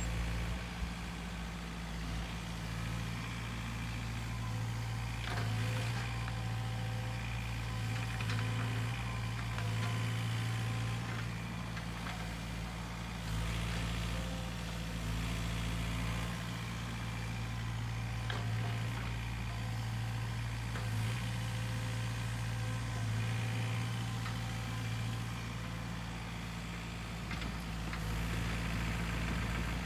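Sany SY50U mini excavator's diesel engine running steadily under varying load as it digs, with a few scattered knocks.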